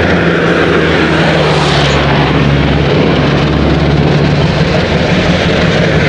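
Large truck engine running steadily at a loud idle, with a deep hum and a rough noisy wash over it.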